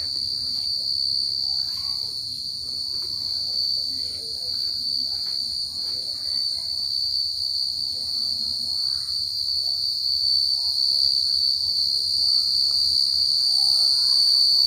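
Field cricket (dế mèn) singing one steady, high-pitched trill, growing a little louder near the end as it is approached, with faint scuffing of footsteps on dirt below it.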